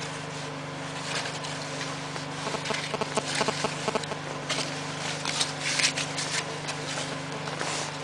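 Paper rustling and crackling in a wood stove's firebox while crumpled newspaper kindling is handled and lit. The crackling sets in a few seconds in and gets louder around the middle, over a steady low hum.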